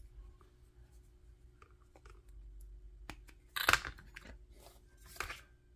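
Small plastic clicks and scraping handling noises as a battery is fitted, with a louder scrape about two thirds of the way through and another near the end.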